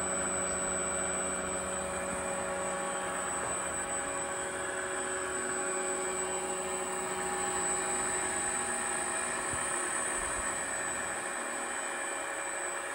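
Steady mechanical hum with a high whine, holding an even pitch throughout, like a small electric motor running.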